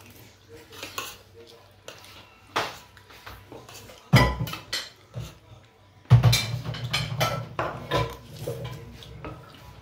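Dishes and cutlery clattering: a run of sharp clinks and knocks as dishes are handled at the sink and a spoon scrapes a plate. The loudest clatter comes about four seconds in, and a longer stretch of it starts about six seconds in.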